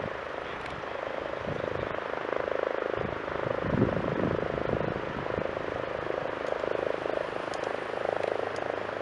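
Twin-engine turboprop military transport aircraft flying past overhead. Its propellers make a steady pulsing drone, with irregular low rumbles of wind on the microphone.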